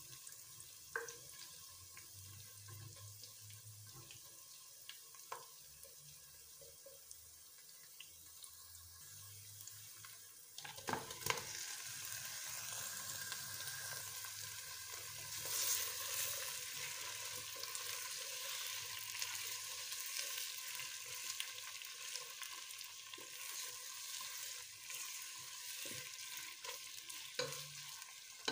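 Onions frying in hot oil in a nonstick pot, stirred with a spatula, with small scraping clicks. About ten seconds in, a few knocks as raw mutton pieces go into the pot, and the sizzling becomes much louder and steady.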